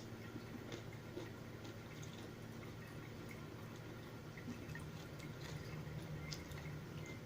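Quiet eating sounds: scattered small wet clicks and smacks of someone chewing spicy instant noodles, over a steady low hum.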